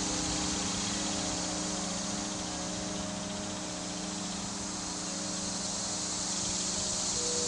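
Ambient drone: sustained low tones held over a steady rushing hiss, with a new tone entering about a second in and another near the end.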